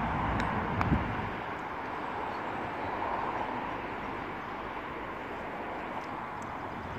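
Steady outdoor rumble and hiss, with a sharp tick about a second in as a putter strikes a golf ball on a practice putt.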